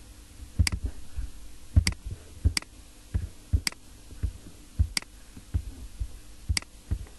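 Computer mouse clicking: sharp, irregular clicks about one to two a second, each with a low knock, over a faint steady hum.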